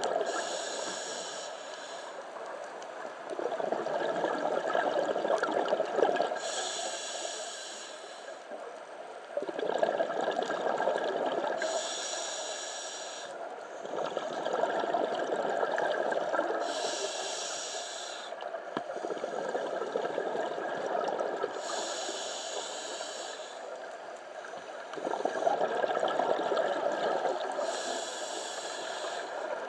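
Scuba diver breathing through a regulator underwater: a short hissing inhale about every five seconds, six in all, each followed by a longer rumble of exhaled bubbles.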